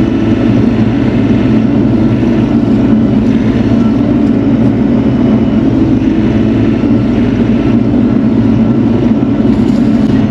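Bobcat E42 mini excavator's diesel engine running loud and steady under working revs while grading dirt.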